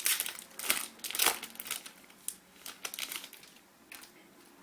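Plastic wrapper of a hockey card pack crinkling as it is torn open and handled, in a quick run of irregular crackles that thin out after about three seconds.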